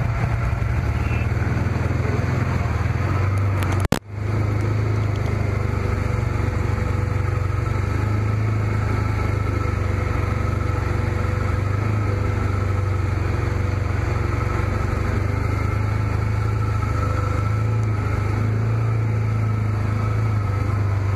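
Off-road vehicle engine running steadily under way, a low, even drone heard from on board the vehicle. About four seconds in, the sound cuts out briefly with a click and then resumes.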